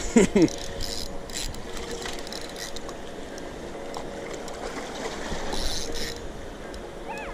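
Spinning reel cranked on a steady retrieve, over the constant rush of water from a dam spillway. A man's voice calls out briefly at the very start.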